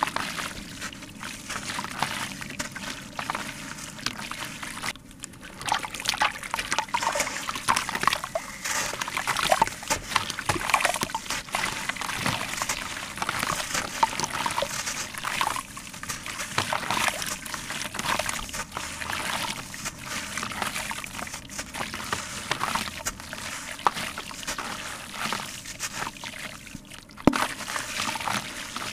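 Soft sand-cement chunks crumbling in the hands, grit and lumps pouring and trickling into a tub of water with small splashes and sloshing. There is one sharp click near the end.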